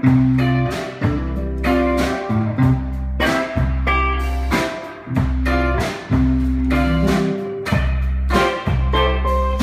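Live rock band playing: electric guitars, bass and drum kit in a steady rhythm.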